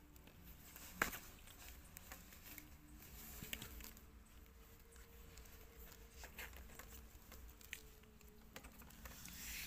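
Faint scattered taps, clicks and scuffles of a puppy and a baby monkey wrestling on a playpen floor, with one sharper click about a second in.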